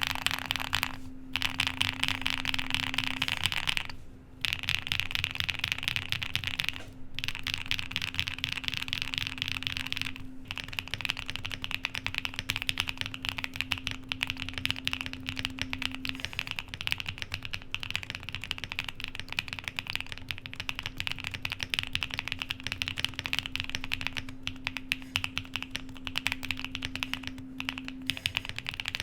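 Typing on a QK65 mechanical keyboard with lubed Coley linear switches on an FR4 plate: a fast, steady stream of keystrokes, with a few short pauses in the first ten seconds. The keystrokes have a creamy, poppy sound, which comes from the long-pole stem bottoming out on the PBT bottom housing.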